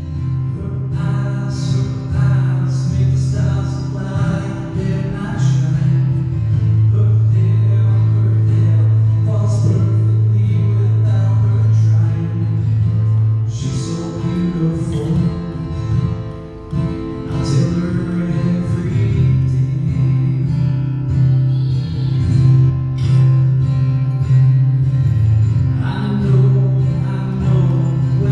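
A man singing a song while playing acoustic guitar.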